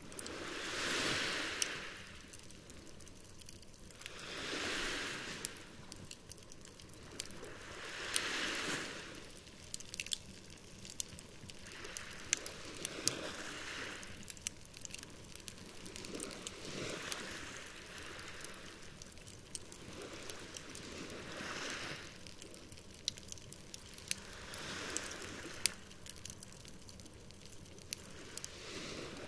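Small sea waves washing onto the shore in slow swells about every four seconds, with the sharp pops and crackles of a burning campfire over them.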